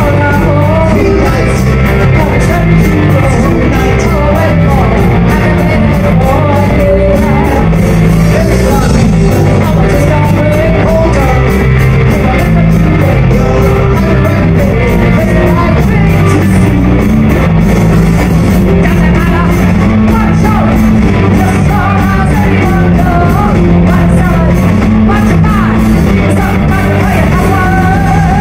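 Live rock band playing loud with two electric guitars and a drum kit, a woman singing lead over it.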